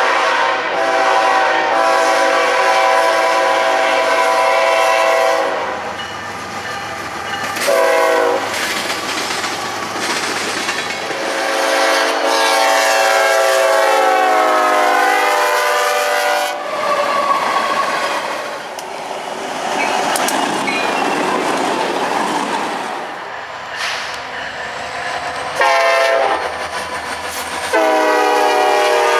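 Diesel freight locomotive horns sounding in a series of separate blasts: a long multi-note chord, then a short blast, then a chord that slides down in pitch as the locomotive passes. Next come the rumble and wheel clatter of the train rolling by, then more short horn blasts near the end.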